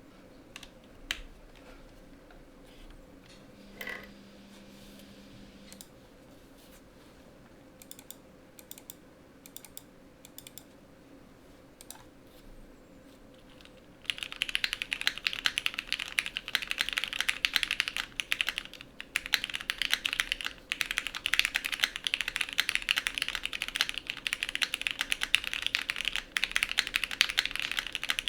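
Mechanical keyboard with lubed retooled Cherry MX Black linear switches in an aluminium top-mount plate (Matrix 1.2 OG) under Cherry G80 keycaps. Only a few scattered light clicks at first, then about halfway in fast, continuous typing, a dense run of keystrokes.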